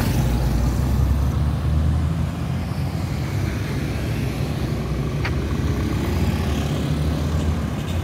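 Road traffic: a coach's diesel engine rumbles low as it pulls away, with motorcycles passing close by. A brief high chirp comes about five seconds in.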